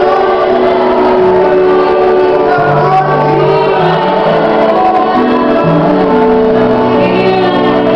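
A live worship band, with several voices singing together in long held notes over keyboard, electric guitar and drums.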